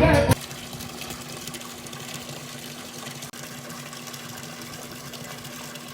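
Latin music cuts off abruptly just after the start, followed by a steady mechanical hum with an even hiss.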